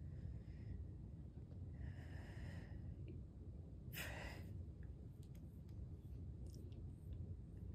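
Low steady room hum with faint breathing, and a short, sharper breath out about four seconds in.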